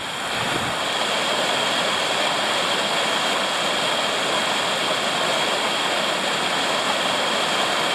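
Fast hill stream rushing and splashing down a rocky cascade, a steady loud rush of water that swells over the first second.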